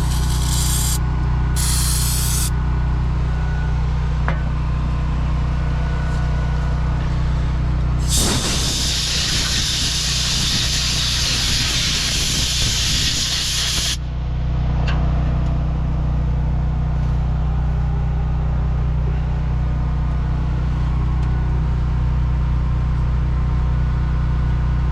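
Two short spurts of spray hiss near the start, then a long loud spray hiss of about six seconds from about eight seconds in. Under it runs a steady machine drone.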